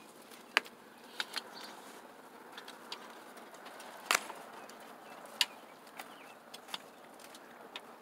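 Chickens pecking at feed in a bowl: scattered, irregular sharp taps over a low background.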